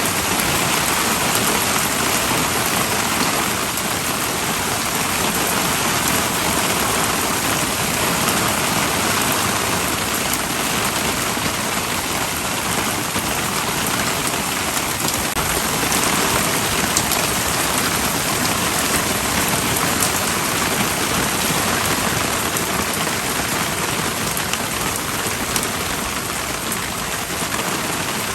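Heavy rain pouring down in an intense downpour, a steady loud hiss of drops hitting surfaces with scattered individual drop ticks.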